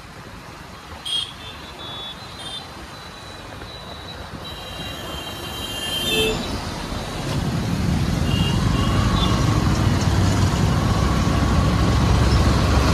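Road and traffic noise from a motorcycle riding in city traffic, with short vehicle horn toots in the first half. From about seven seconds in, a low rumble builds and the sound grows louder as the bike picks up speed.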